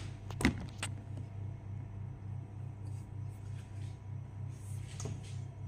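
Oven running just after being switched on: a low steady hum that throbs about three times a second, with a light knock about half a second in.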